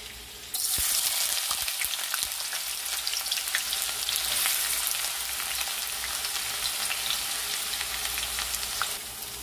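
Chopped onions hitting hot oil in a pot, starting a sudden loud sizzle about half a second in that carries on as a steady crackling hiss of frying. It eases slightly near the end.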